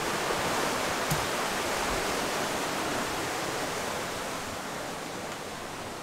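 Steady rush of water and wind heard inside the saloon of a Lagoon 46 catamaran sailing at about 9 knots, easing slightly toward the end. A small click about a second in.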